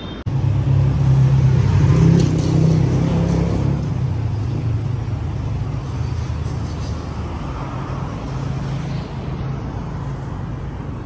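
Steady low rumble of road traffic, starting abruptly just after the beginning and easing off gradually.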